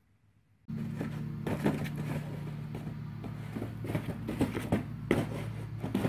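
Cardboard box being batted, grabbed and shoved across a dirt floor by a large spotted cat: a run of irregular knocks, thumps and scrapes starting suddenly about a second in, over a steady low hum.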